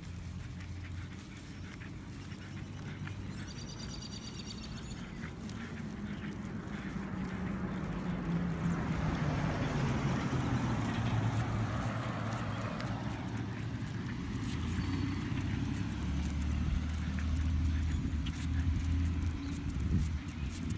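Road traffic: a car's engine and tyre noise, swelling to a peak about ten seconds in as it passes and then easing, over a steady low engine hum.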